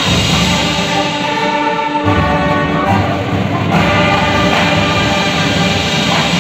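Marching band playing a slow passage of held brass chords over low drums, the chord changing about two seconds in and again just before the four-second mark.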